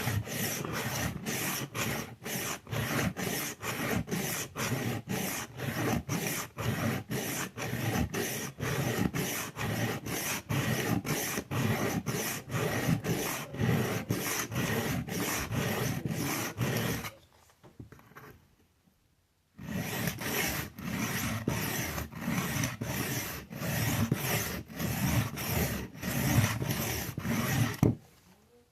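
Kitchen knife blade stroked back and forth on a diamond sharpening stone: rhythmic scraping at about two strokes a second. The strokes pause for about two seconds a little past halfway, then resume and stop near the end.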